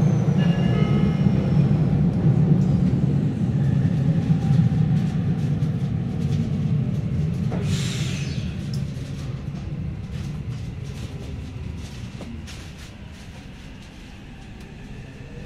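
Train noise around a Tokyo Metro 9000 series subway car: a heavy low rumble that is loudest in the first few seconds and slowly fades, with a short burst of hiss about eight seconds in.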